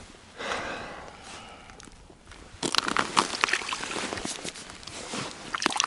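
Ice chips and slush crunching and scraping as hands sweep them across the ice beside a fishing hole, with a dense run of sharp crunches starting about two and a half seconds in.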